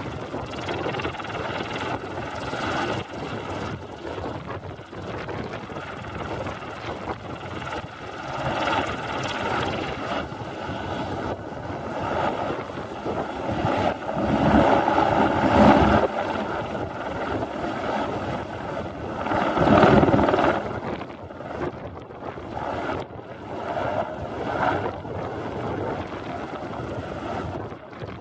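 Eurocopter AS350B2 (Airbus H125) single-engine helicopter running with its rotors turning: a steady turbine whine under rotor noise, and the helicopter lifts off toward the end. Strong wind gusts buffet the microphone, loudest about halfway through and again a few seconds later.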